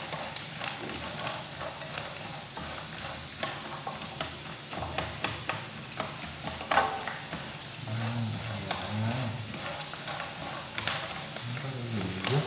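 Macaroni frying in a non-stick pan, a steady sizzle, with the clicks and scrapes of a wooden spatula and chopsticks stirring it against the pan.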